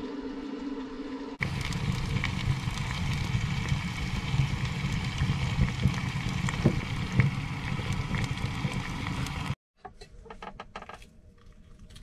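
Wood fire burning in a small wood stove's firebox: a steady rush with frequent sharp crackles and pops. A steady hum comes before it, and after a sudden cut it gives way to a few light clicks of a fork on a plate.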